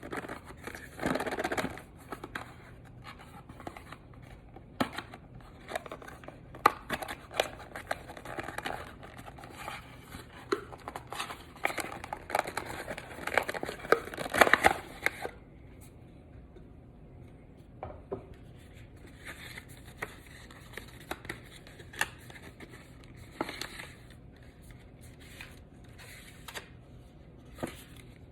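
Phone packaging being opened by hand: irregular scratching, tearing and crinkling of plastic and cardboard. It is busy for about the first half, then thins to scattered clicks and rustles.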